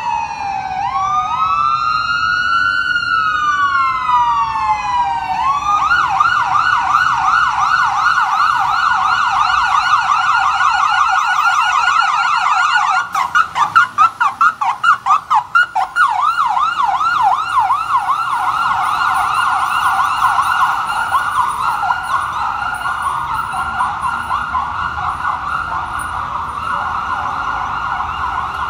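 A 2017 Spartan Gladiator/Smeal fire engine's electronic siren: a slow rising-and-falling wail that switches to a fast yelp about five seconds in. As the engine passes there is a run of short loud blasts, about three a second, lasting some three seconds. Then the yelp goes on, a little fainter as the engine moves off.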